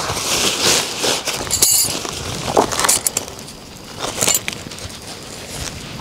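Irregular clinking, clicking and rustling of objects being handled, with a quieter stretch about halfway through.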